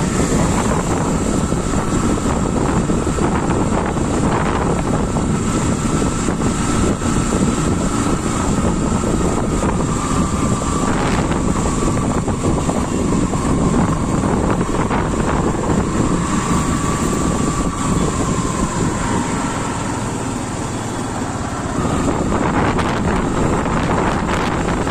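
Strong wind buffeting the microphone on a moving motorcycle, over the bike's engine and road noise. A thin whine stays steady and sinks a little in pitch in the middle, and the noise eases briefly near the end before coming back up.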